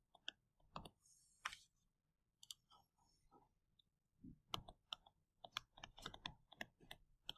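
Faint, irregular clicks of a stylus tapping on a tablet screen while writing numbers by hand, sparse at first and coming thick and fast from about halfway through.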